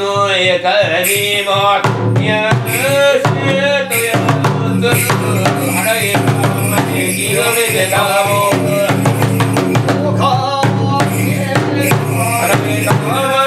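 Bitchu kagura music: a taiko drum beating steadily under a voice chanting a drawn-out, wavering song.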